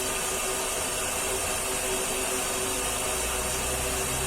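Four-cylinder VW EA111 engine idling steadily under the open hood, running smoothly with no misfire now that the loose ignition-coil connector pin has been repaired. A deeper low hum comes in about three seconds in.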